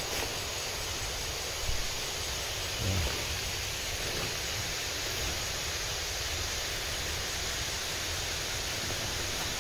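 Steady rushing of a nearby river, an even hiss of flowing water, with a couple of soft low thumps a few seconds in.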